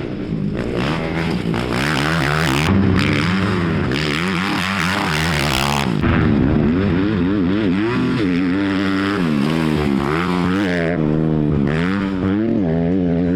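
Dirt bike engines revving hard, their pitch climbing and dropping again and again as the throttle opens and closes, with a loud rushing hiss about one to six seconds in.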